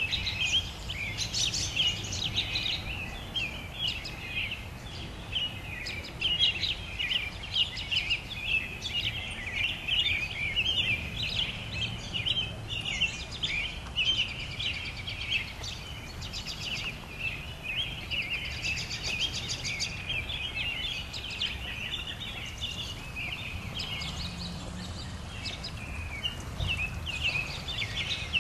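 Many songbirds singing and chirping at once in a dense, overlapping evening chorus, over a steady low background rumble.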